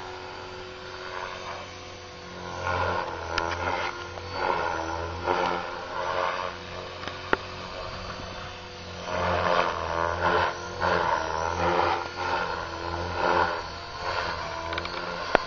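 Align T-Rex 500 flybarless electric RC helicopter in aerobatic flight: a steady motor hum under a rotor whoosh that swells and fades repeatedly as the helicopter is thrown through manoeuvres. Two sharp ticks stand out, one midway and one near the end.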